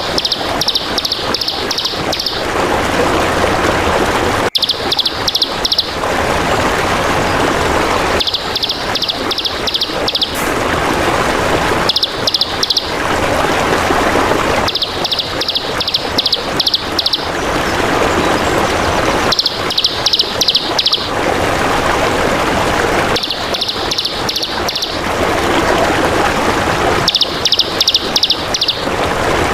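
A songbird's rapid chattering trill of high notes, about ten a second, repeated in bursts of one to two seconds every three to four seconds, over a steady hiss of trickling water.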